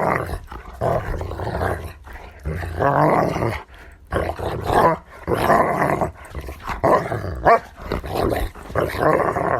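Dogs growling in repeated rough bouts of about a second each, with short pauses between them.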